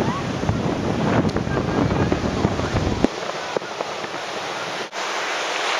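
Strong sea wind buffeting the microphone over the rush of surf breaking on the beach. About three seconds in the low rumble of the wind cuts out suddenly, leaving the hiss of the surf.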